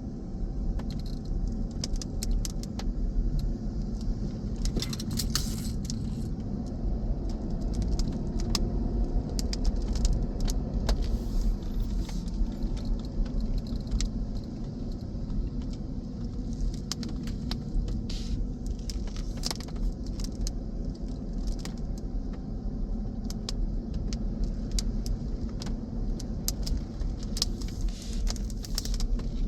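Car driving, a steady low road rumble with light jingling and clicking scattered throughout.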